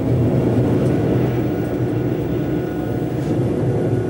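Steady running noise in the cab of a BLS electric locomotive hauling a heavy freight train up a 27-per-mille grade: a constant low hum and rumble from the motors and the wheels on the rails, with a faint high whine above it.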